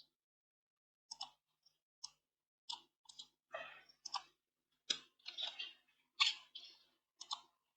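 Irregular computer mouse clicks and keyboard taps, about a dozen short clicks spread unevenly with silent gaps between them, some coming in quick pairs.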